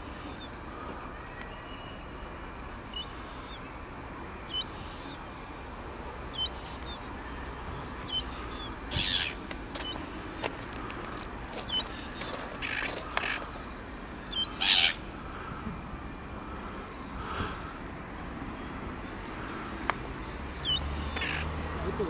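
Crow cawing in harsh calls, several bunched together in the middle stretch, over short high chirping bird calls that repeat every second or two.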